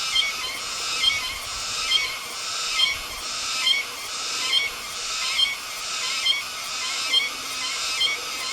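A cicada calling from the treetops: a continuous high buzzing drone that swells into a sharp accented pulse a little more than once a second, in a steady repeating rhythm.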